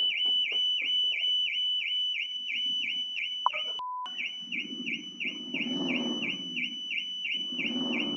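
Car alarm sounding: a high pulsing tone that repeats about three times a second, broken by a brief dropout about four seconds in.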